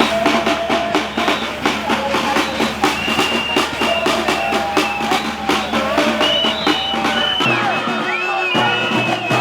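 Drum-led music with a quick steady beat, about four or five hits a second, under held higher tones.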